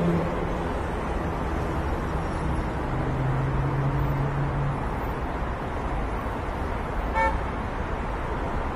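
Road traffic passing steadily on a busy city road: cars, minibuses and taxis going by. A low steady drone is heard for about two seconds in the middle, and a short horn toot sounds near the end.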